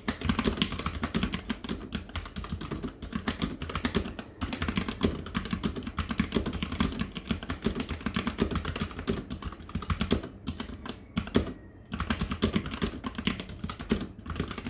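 Fast typing on a mechanical keyboard fitted with PBT Cherry-profile keycaps: a steady clatter of keystrokes with a short pause near the end.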